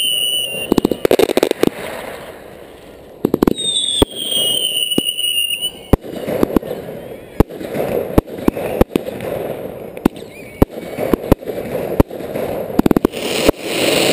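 Fireworks display heard at close range: a rapid, irregular series of sharp bangs from launches and bursts over a noisy crackling hiss. A whistling firework falls in pitch just at the start, another from about three and a half seconds in for about two seconds, and a louder rush of noise comes near the end.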